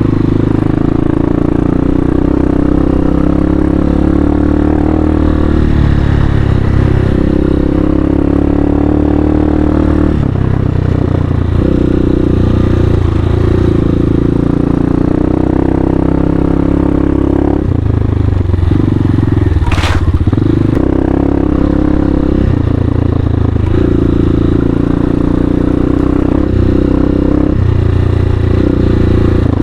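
Hawk 250 dual-sport motorcycle's single-cylinder four-stroke engine running under load off-road, its pitch rising and dropping every few seconds with throttle changes and shifts. A brief, sharp high-pitched noise about twenty seconds in.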